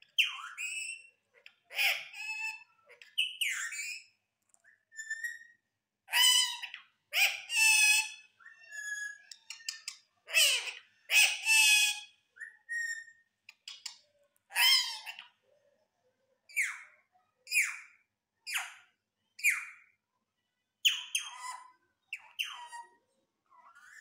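Indian ringneck parakeet talking in a high, squeaky mimicked voice: a string of short Urdu phrases such as "Mithu beta" and "kon aya", about one a second, with a few short whistled notes between them.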